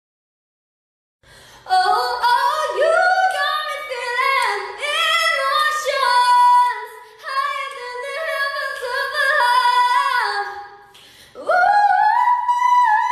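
A woman singing solo, unaccompanied, in a high voice with long held notes. Near the end she slides up into a high note.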